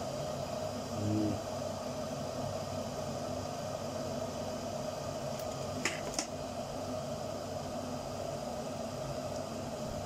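Stainless-steel electric kettle heating water that is getting hot but not yet at the boil, a steady hiss and hum of the heating water. Two short clicks about six seconds in.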